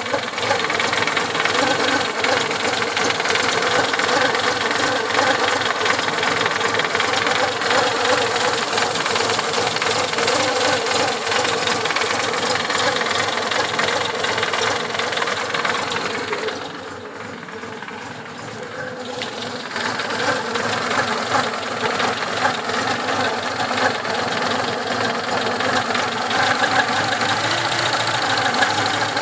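ZAZ-1102 Tavria's four-cylinder petrol engine idling steadily. About halfway through it turns briefly quieter and duller for a few seconds, then returns to the same level.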